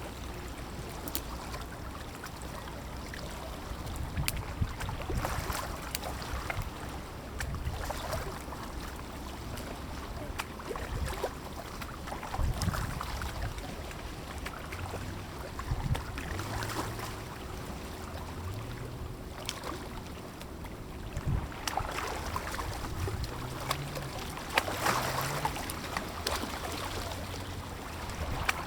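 Lake water lapping and splashing against a small fishing boat, with wind noise on the microphone and scattered light knocks.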